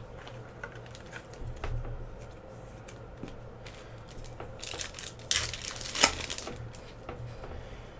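Foil trading-card pack wrapper being torn open and crinkled: faint card-handling clicks at first, then a loud burst of tearing and crinkling past the middle with a sharp snap about six seconds in.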